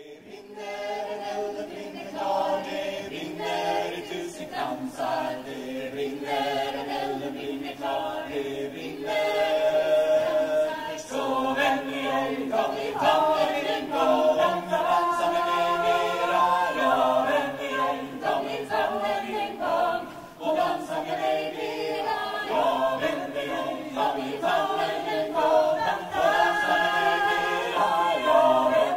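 A choir singing a cappella, several voices holding long notes together in chords.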